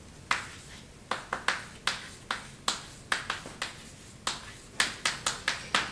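Chalk writing on a blackboard: an irregular string of sharp clicks and taps, a few each second, as each letter is struck out.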